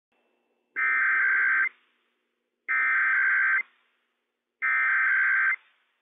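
Emergency Alert System SAME header sent over NOAA Weather Radio: three identical bursts of digital data tones, each just under a second long and about two seconds apart. It is the coded opening of a Required Weekly Test, sent without the long alert tone.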